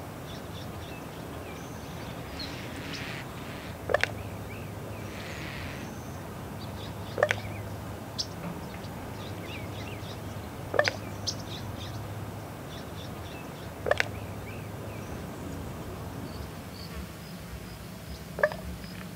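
Common ravens giving short, sharp territorial calls, five in all, spaced three to four seconds apart, over faint high chirping.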